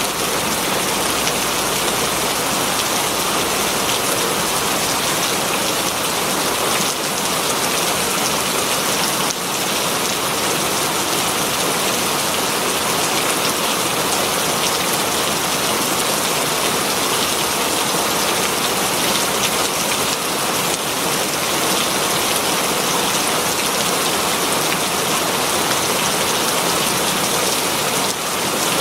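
Very heavy rain falling steadily on leaves, a dense even hiss of drops.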